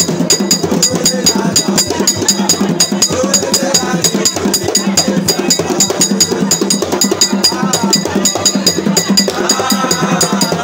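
Music with fast, steady percussion: sharp clicks like a wood block over drums, with voices singing at times.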